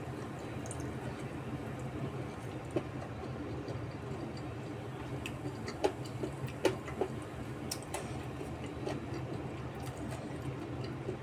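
A person eating and chewing between bites, with scattered small clicks and smacks, the sharpest a little past the middle, over a steady low hum.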